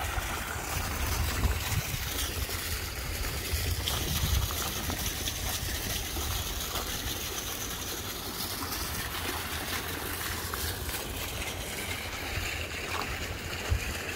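Small garden fountain jet splashing into a shallow stream, a steady watery rush, under a low, fluctuating rumble that is loudest in the first few seconds.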